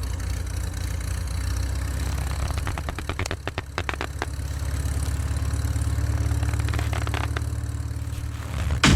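Steady low idling engine hum, with a quick run of clicks a few seconds in and a few more later. A sudden loud burst comes just before the end.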